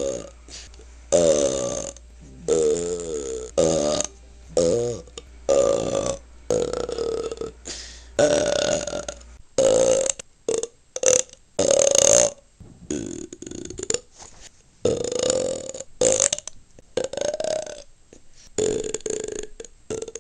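A person burping over and over in a string of separate belches, some twenty in all. The early ones are longer, up to about a second, with a wavering pitch. From about halfway they come shorter and closer together, and the low background hum heard under the first half stops.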